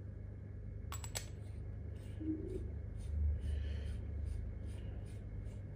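Small metal clicks and handling noises as the parts of a PCP air-rifle regulator valve are turned and fitted together by hand, with a couple of sharper clicks about a second in.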